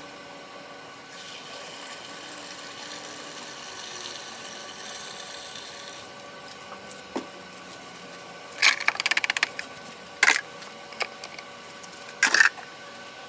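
Gasoline pouring from a plastic gas can through a funnel into a car's fuel filler, a faint steady trickle for about six seconds. After that come several loud plastic clatters and knocks as the can and funnel are handled and set down, the loudest near the end.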